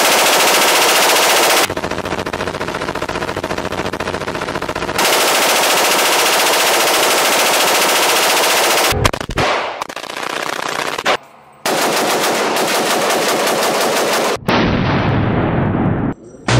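AR-15 rifle firing fully automatic in long, rapid strings of shots, with brief breaks between the strings, in an indoor firing range.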